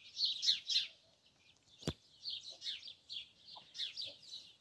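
Young chicks peeping: a run of short, high, falling cheeps, several a second, with a brief lull about a second in that is broken by a single sharp click.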